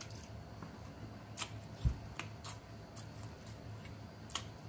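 Eating chicken wings by hand: scattered sharp clicks and smacks of mouth and fingers on the meat and bones, with one dull thump about two seconds in.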